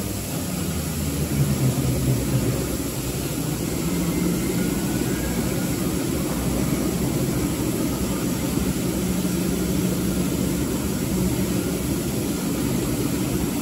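Drive motor and gearing of a Tacchi FTC 120 heavy-duty roll lathe running, probably the powered tailstock drive, with a steady low mechanical hum and rumble. It is a little louder and rougher about one to two seconds in.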